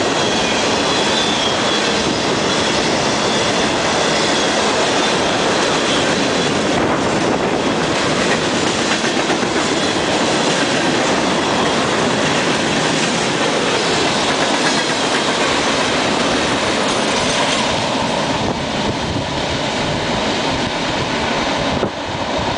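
Freight train tank cars rolling past close by: a steady rumble and clatter of wheels on the rails, with a thin, high wheel squeal in the first few seconds.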